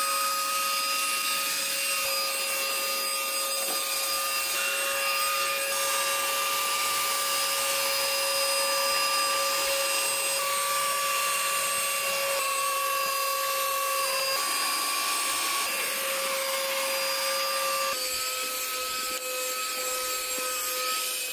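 Cordless handheld vacuum cleaner running steadily with a motor whine while picking up dog hair; the whine shifts slightly in pitch a few times as the load on the motor changes.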